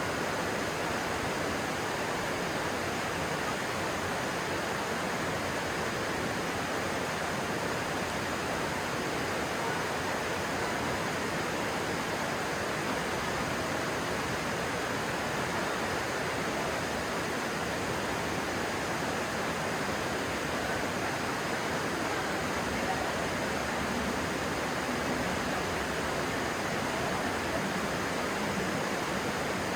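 Stream water rushing, a steady, even rush with no breaks.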